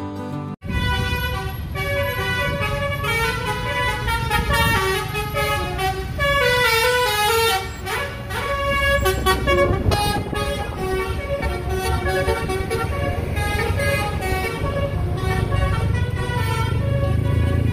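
A road vehicle runs steadily with a low rumble, and a melodic tune of held notes stepping up and down plays over it.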